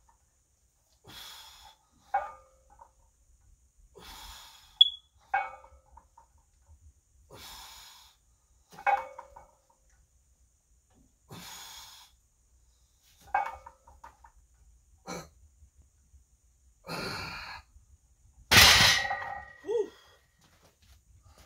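Hard breaths and short metallic clinks from a 255 lb barbell with iron plates through a set of bench-press reps, then a loud clang with a ringing tail about three-quarters of the way in as the bar is racked onto the power rack's hooks.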